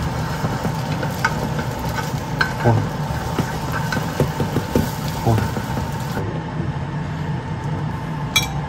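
Beaten egg sizzling in a rectangular tamagoyaki pan while chopsticks stir and scramble it, with scattered light clicks of the chopsticks against the pan over a steady low hum.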